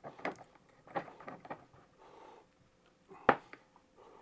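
Small clicks and taps of metal being handled as iron-wire spirals are clamped and flattened in a small vise, with one sharp clack a little over three seconds in.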